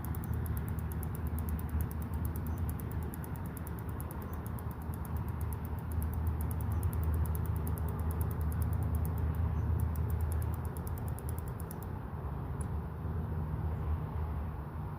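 Johnson push-button spincast reel being cranked to retrieve the line, giving a fine, fast, even ticking that pauses briefly and stops about twelve seconds in. Under it runs a steady low hum.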